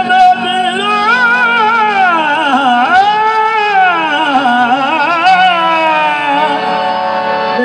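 Punjabi Sufi devotional singing: a man's voice sings long, sliding melodic phrases over steady held harmonium notes.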